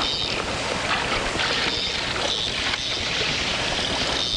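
Steady wind noise on the microphone and water washing around a small fishing boat.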